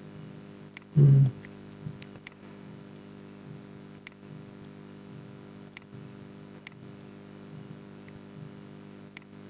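Computer mouse clicks, about six sharp isolated ones spaced a second or two apart, over a steady low electrical hum. There is a brief, louder low thump about a second in.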